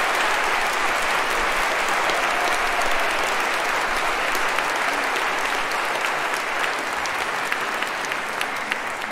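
Audience applauding, a dense steady patter of clapping that begins to ease off near the end.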